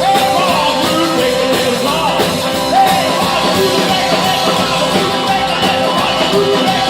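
A rockabilly band playing live and loud.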